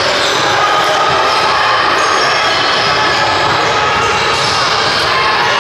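Steady, loud din of a busy basketball gym: many overlapping voices mixed with basketballs bouncing on the hardwood floor.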